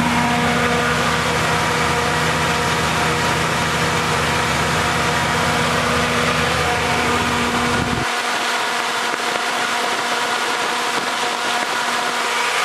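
Big-block V8 of a 1980 dually pickup idling steadily while it warms up after a cold start. About eight seconds in, the deep low rumble drops away abruptly and leaves the higher engine tone.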